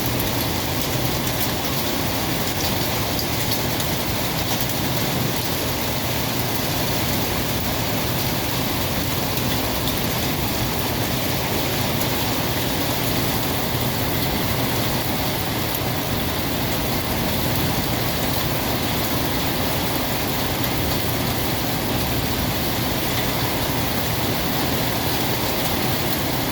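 Heavy rain pouring down in a steady, unbroken roar.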